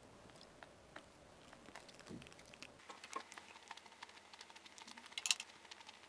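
Faint chewing and soft mouth clicks of someone eating a piece of pan-fried jeon, with a louder cluster of clicks about five seconds in.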